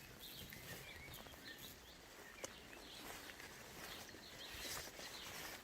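Small birds chirping and singing, many short repeated calls, faint over a steady outdoor background hiss, with a single sharp click about halfway through.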